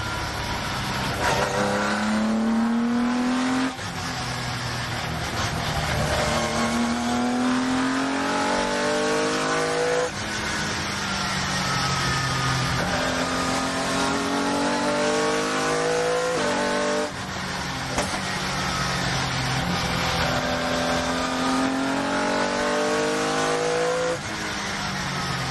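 Ginetta G50 GT4 race car's 3.5-litre V6 heard from inside the cockpit under full acceleration, the engine note climbing and dropping sharply at four upshifts.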